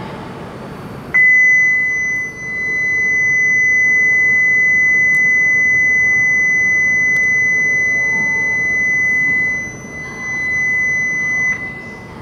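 Platform electronic warning buzzer on a Shinkansen station, one steady high-pitched tone held for about ten seconds from about a second in, then cutting off, with train rumble underneath.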